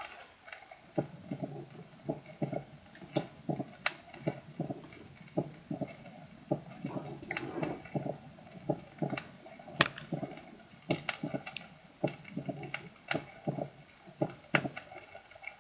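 Recorded heart sounds heard through a stethoscope: a steady run of soft thumps and sharper clicks, each cycle made of three sounds (first sound, second sound and an opening snap) without the lilt of a gallop rhythm. An opening snap is the classic sign of mitral stenosis.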